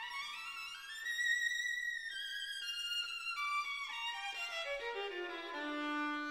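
Background violin music: a slow melody that climbs, then steps down note by note to a low held note near the end.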